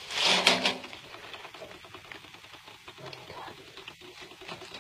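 A short loud rustling scrape, then light irregular clicking and scratching: the opened trap being handled as the pack rat is let out.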